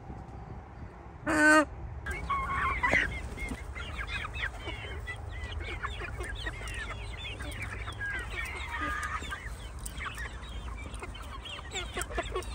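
Young Shamo chickens: one short, loud, hoarse call about a second in, then a steady chatter of many high peeps and clucks from a flock of young birds.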